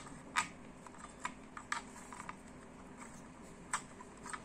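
A string of irregular sharp plastic clicks and taps from an Intel stock CPU cooler's push-pin hooks and frame as it is pressed and seated onto the motherboard.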